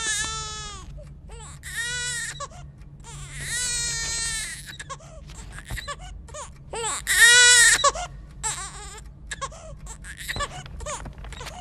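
Infants crying: a series of high, wavering wails, each about a second long with short pauses between them, over a faint low hum.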